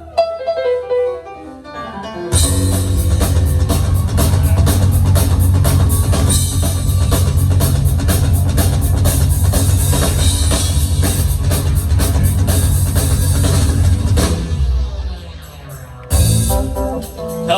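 Live rock band playing: a few sparse notes, then about two seconds in the full band comes in with fast, driving drums and guitar. The band drops away about fourteen seconds in, with a short loud burst near the end.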